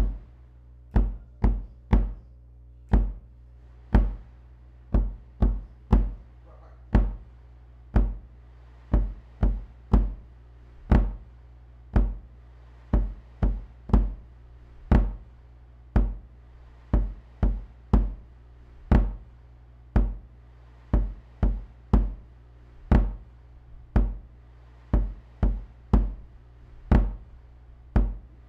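A deep, hide-headed bass drum struck in a steady beat, about one stroke a second, with a quick extra stroke every four beats, over a steady low hum.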